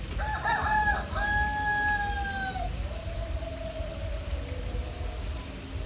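A rooster crowing once: a call with a short break about a second in, then a long held note that falls slightly and trails off, over a steady low rumble.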